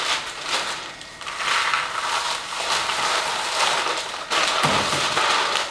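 Large sheets of steaming paper rustling and crinkling as a bundle of steamed silk is unrolled from them, with a louder crumple near the end.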